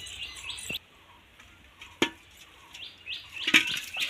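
Birds chirping in the background. A single sharp knock comes about two seconds in, and near the end there is a short metallic clatter as a steel plate lid is handled on a steel pot.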